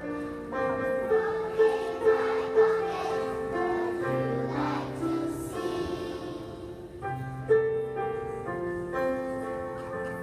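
A large group of young children singing a song together as a choir, over an instrumental accompaniment.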